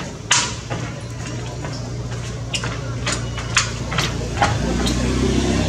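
Scattered short, sharp clicks over a steady low hum. Near the end a low engine-like drone with several pitches swells louder.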